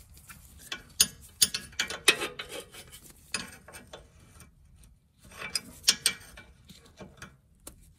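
Ratcheting wrench clicking as it backs the 16 mm nut off a sway bar end link stud, with metal tool clinks. The clicking comes in two runs, a longer one from about a second in and a shorter one just after the five-second mark.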